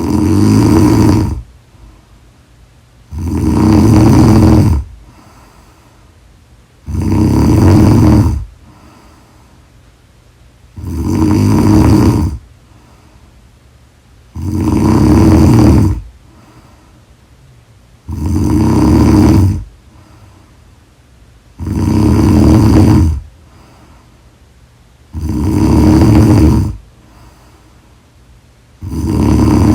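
A woman snoring loudly and regularly, nine snores, one about every three and a half seconds. Each lasts about a second and a half, with quiet breathing between.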